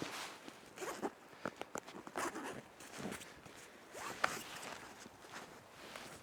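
A zipper pulled in several short rasping strokes, mixed with sharp clicks and rustling as gear is handled.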